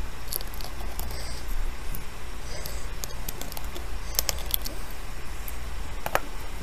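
Small scattered clicks and taps of a screwdriver and tiny screws being handled while the cover screws are undone, with a sharper click about six seconds in, over a steady low hum.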